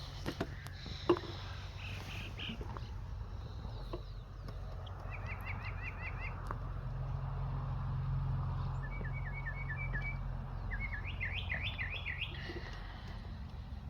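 Songbirds singing short phrases of quickly repeated chirping notes, three phrases in all, over a steady low rumble of distant road traffic.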